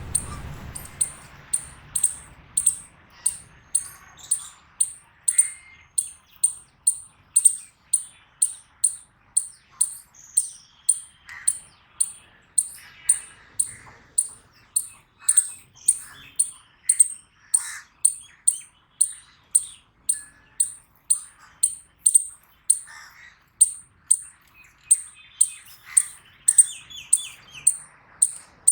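Eastern chipmunk giving its repeated high "chip" call, about two chips a second in a long even series, the chipmunk's typical alarm calling. Fainter, lower chirps sound underneath.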